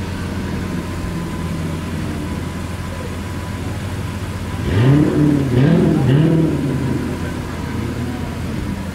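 Lamborghini supercar engine idling steadily with the car stationary, then blipped three times in quick succession about halfway through, each rev rising and falling back to idle.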